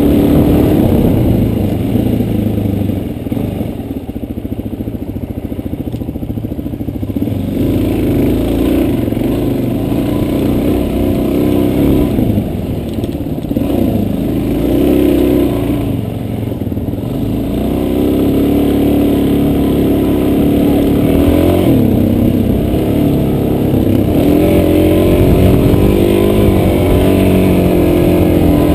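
Off-road vehicle's engine running while being ridden on a trail, its pitch rising and falling as the revs change.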